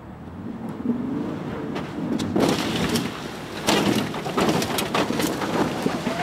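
Ford Ranger pickup's engine revving up as it pulls away, then loud crashing and spraying of dirt and gravel under the tyres as the truck jumps and lands, with heavy thuds about two and a half and three and a half seconds in.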